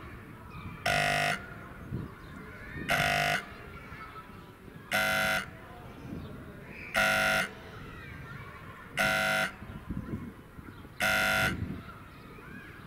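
Soviet-type level crossing warning buzzer horn (houkačka) sounding a short buzzing blast every two seconds, six times, while the crossing's warning is active for an approaching train.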